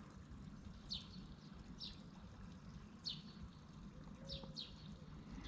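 Faint chirps of a small bird: about five short, high notes, each sliding down in pitch, spaced a second or so apart, over a quiet, steady outdoor background.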